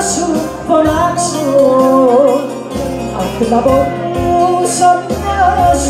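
Greek live band music: a woman singing a winding melody into a microphone over keyboard, guitar and drums, with a cymbal now and then.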